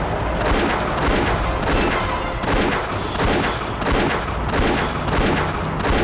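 A steady run of gunshots, about two to three a second, as in a movie gunfight.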